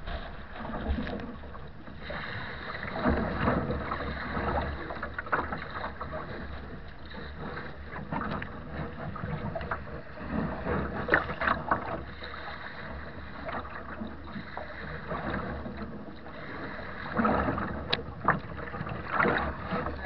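Choppy water slapping and splashing against the bow of a wooden Nordkapp HM sea kayak in uneven surges, with strong wind buffeting the microphone as a low rumble.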